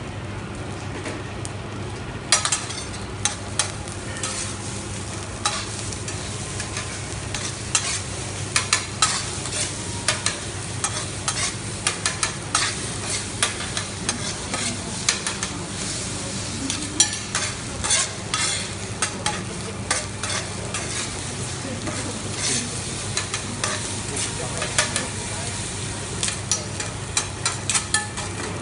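Food sizzling in a frying pan while a utensil is stirred through it, clacking and scraping against the pan many times at an uneven pace from about two seconds in, over a steady low hum.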